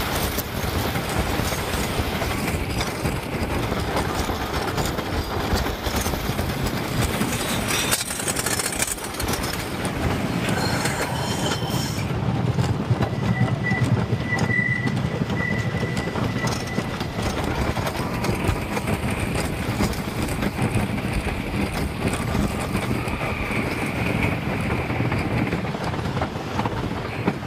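Wooden roller coaster train running along its track at speed, a steady rumbling clatter of wheels on rails with wind rushing past. A thin high squeal comes in briefly about halfway through.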